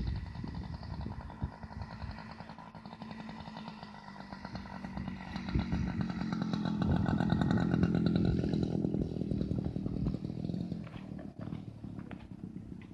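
Radio-controlled model aeroplane's small engine running steadily, growing louder to a peak about seven to nine seconds in and then fading away, the run smooth and regular.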